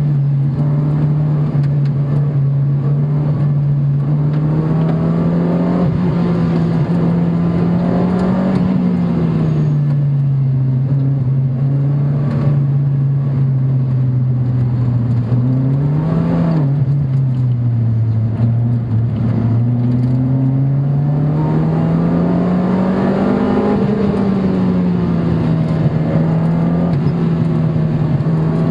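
Car engine heard from inside the cabin while lapping a race track, its revs rising and falling slowly through the corners, with a quick blip about sixteen seconds in.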